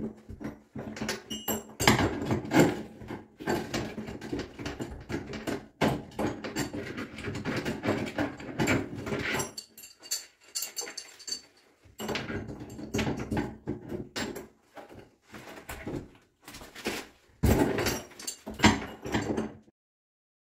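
An old cone-style shower tap, seized on, being worked loose by a gloved hand: irregular squeaks, scrapes and knocks of the metal tap and its fittings. The sound cuts off suddenly near the end.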